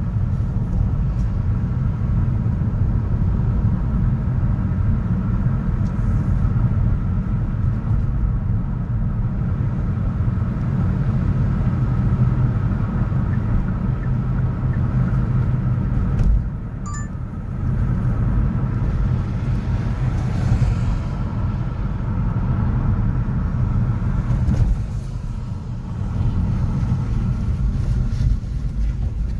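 City road traffic: a steady low rumble of vehicles going by, easing off briefly twice, once a little past the middle and again later on.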